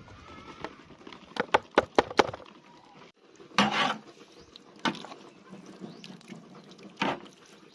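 Sharp knocks and clatter from kitchen work at a cooking pot: a quick run of about six knocks, a short scraping rustle a couple of seconds later, then two single knocks.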